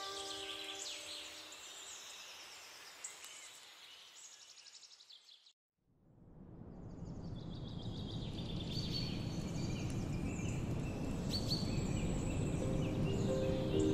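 Small birds chirping over a steady outdoor background noise. The sound fades out to silence about halfway through, then fades back in with a low rumbling noise under the chirps.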